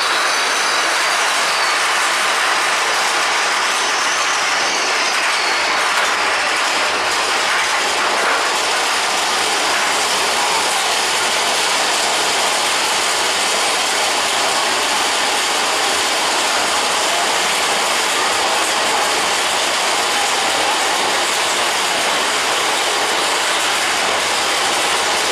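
Big Thunder Mountain Railroad mine-train roller coaster running on its track: a steady, loud rattle and clatter of the cars and wheels.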